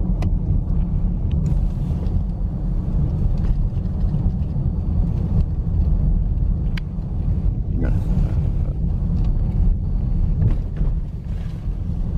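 Steady, loud low rumble of a moving vehicle, with a few faint clicks scattered through it.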